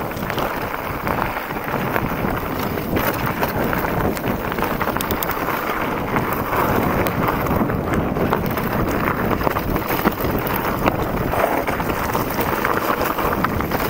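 Mountain bike descending a loose gravel trail: steady wind rush on the handlebar-mounted camera's microphone, with the tyres crunching over stones and constant quick rattles and clicks from the bike over the rough ground.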